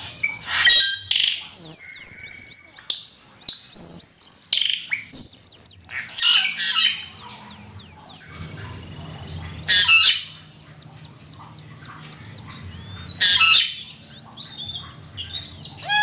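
Cucak keling song: a fast string of loud, sharp chirps and high clear whistles mixed with harsher rasping notes, broken by short pauses, over a faint steady low hum.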